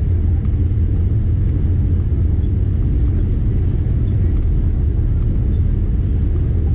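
Steady low rumble inside the cabin of a Boeing 787 Dreamliner, from its GE engines and the airframe as the jet rolls along the runway.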